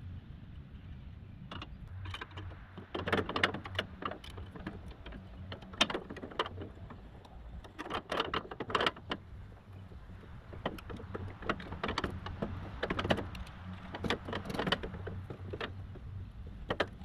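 Irregular metal clicks, clinks and rattles of hand work on a sawmill's height-adjustment crank assembly, with one sharper knock about six seconds in, over a steady low hum.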